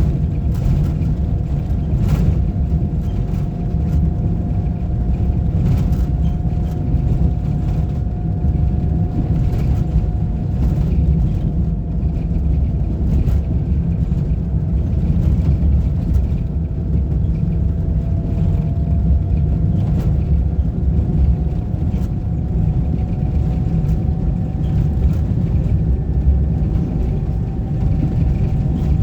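Road vehicle driving steadily: a continuous low rumble of engine and road noise, with a faint steady whine that drifts slowly in pitch and a few light knocks.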